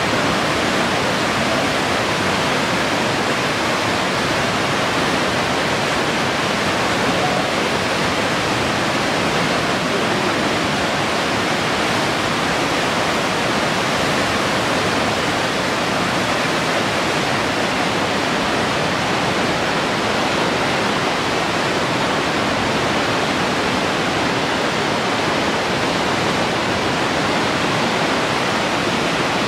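The Aare river's white water rushing through a narrow rock gorge: a steady, unbroken rush of water.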